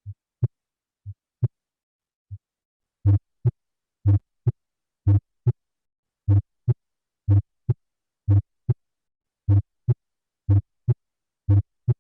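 Recorded heart sounds from an auscultation training track. The first two seconds hold a few sparse, weaker thuds. From about three seconds in they become a steady lub-dub: first and second heart sounds in pairs about 0.4 s apart, roughly one pair a second.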